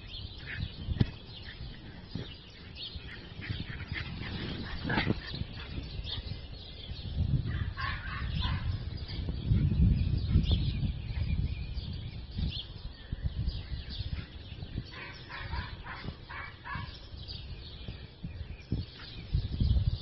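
Two small dogs, a Yorkshire terrier and a small black-and-white terrier, yipping and barking in play, in short clusters of high calls about eight seconds in and again around fifteen to seventeen seconds, over a low rumble on the microphone.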